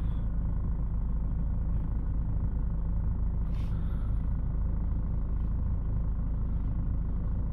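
Ford S-Max's 2.2-litre four-cylinder diesel engine idling steadily, heard from inside the cabin as an even low rumble.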